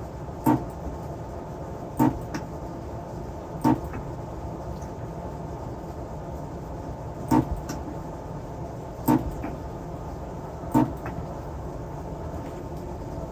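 Battery tab spot welder firing six sharp snaps at uneven intervals, a few with a fainter second click just after, as nickel strip is welded onto the cells. A steady background hum runs underneath.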